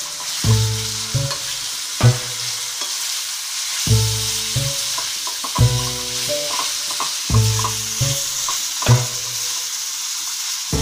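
Pork belly sizzling as it fries in a metal wok, stirred with a wooden spoon that scrapes and taps the pan now and then. Background music with a repeating low note pattern plays underneath.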